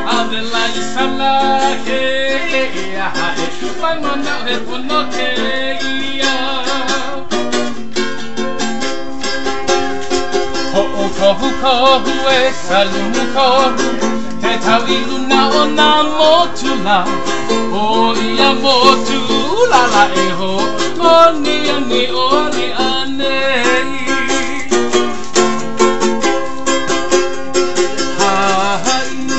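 A man singing while strumming a ukulele.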